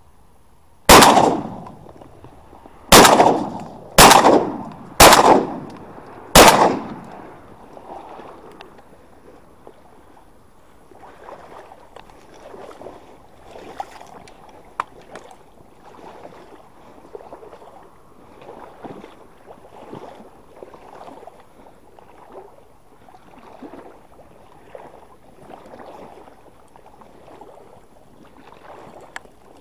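Five shotgun shots in quick succession over about five seconds, each a sharp bang with a short echoing tail. Afterwards there is soft, rhythmic sloshing of water about once a second.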